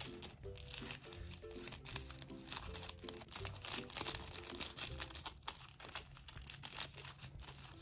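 A clear cellophane packet crinkling as it is cut with scissors and pulled open by hand, a dense run of small crackles, over light background music with a simple melody.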